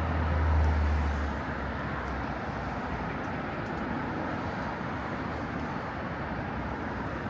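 City street traffic noise, a steady wash of road sound. A deep low rumble swells and fades within the first second and a half.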